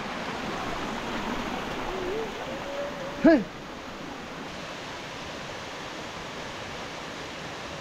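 Steady rushing hiss, like running water, under a faint voice. About three seconds in there is one short, loud vocal call.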